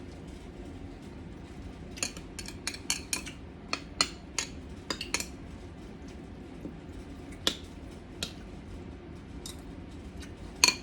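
Kitchen utensils clinking and tapping against dishes while preparing pico de gallo: a quick run of sharp taps about two seconds in, a few scattered ones later, and the loudest clink near the end.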